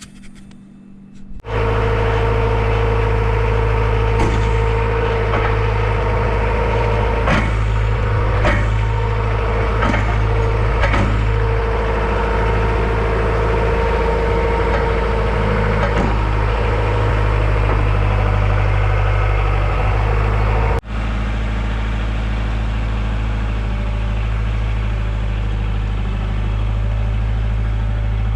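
Engine running steadily with a low hum, with a few sharp knocks and clicks over it in the first ten seconds or so. It starts abruptly a second and a half in and drops out for an instant about 21 seconds in.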